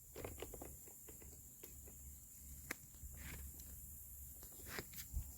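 Faint, scattered clicks and light taps of hands working inside a truck door, reaching for the lock rods, over a low hum.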